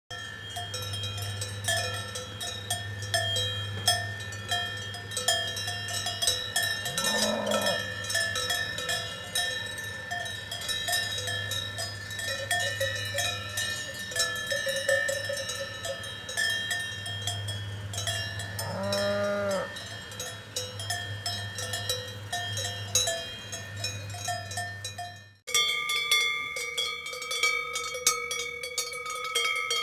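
Many cowbells on grazing cows clanking and ringing in an irregular jangle. A cow moos twice, about seven seconds in and again near twenty seconds. Around twenty-five seconds the sound cuts briefly to silence and comes back with a different set of bells.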